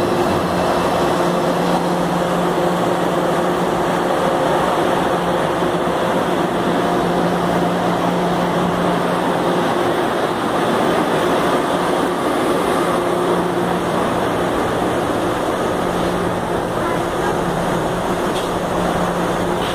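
Metro train standing at the platform with its equipment running: a steady low drone over constant noise.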